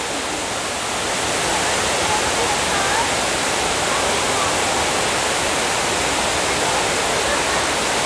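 A large waterfall pouring down a rock face in heavy rainy-season flow, making a steady full rush of water.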